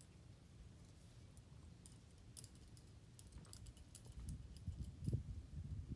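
Faint, quiet ambience: a low steady rumble with a cluster of light clicks and ticks in the middle.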